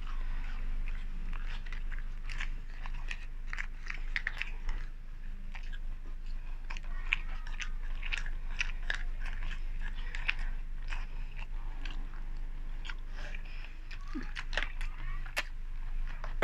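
Close-miked eating: chewing and mouth sounds with frequent small crunches and clicks of a plastic spoon against food containers, over a steady low hum.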